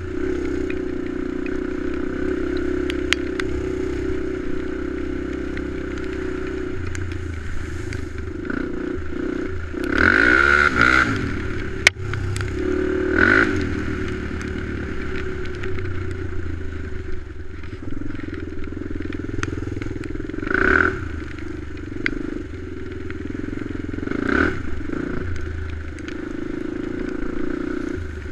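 ATV engine running while riding a snowy trail, rising in pitch in several short revs, about ten, thirteen, twenty-one and twenty-four seconds in. A single sharp knock sounds about twelve seconds in.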